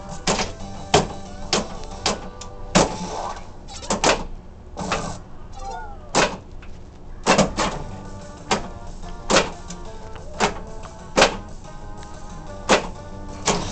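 Williams Earthshaker pinball machine in play: its electronic music and sound effects, with a short gliding effect about six seconds in, over repeated sharp knocks from the playfield mechanisms at irregular intervals.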